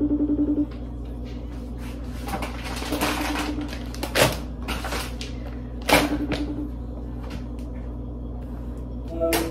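Outgoing phone call ringing on a phone's speaker: a short pulsing ring tone that comes four times, about every three seconds, while the call waits to be answered. Rustling of a plastic bag and a couple of sharp knocks between the rings.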